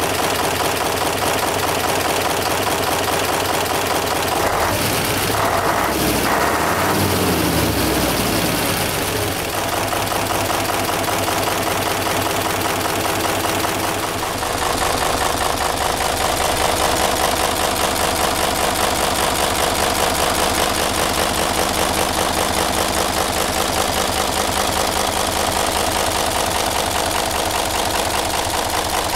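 Isuzu 10PD1 V10 diesel engine running steadily at idle. Between about five and nine seconds in, its note briefly rises and falls, then settles back to an even idle.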